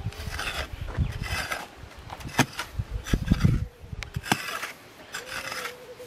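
Pickaxe digging into gravelly soil: repeated scraping, crunching strokes about once a second, with a few sharp clinks as the steel point hits stones.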